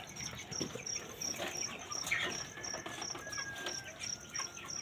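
Crickets chirping steadily in a high, even pulse of about four or five chirps a second, with scattered faint clicks and knocks.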